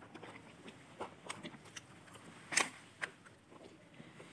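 Quiet eating sounds: chewing, with scattered small clicks of chopsticks working in foil trays of noodles, the loudest click about two and a half seconds in.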